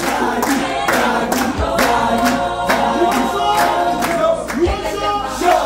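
A group of young people singing together, with steady hand clapping about three times a second.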